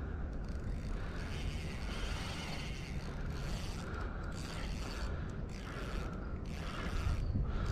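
Fishing reel being cranked to retrieve line: the gears whir in short repeated pulses with each turn of the handle, over a steady low rumble.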